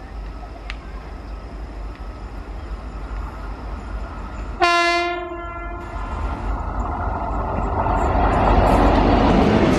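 Electric locomotive sounding its horn once, a single-note blast of just over a second, about halfway through. Afterwards the rumble of the approaching train on the rails grows steadily louder.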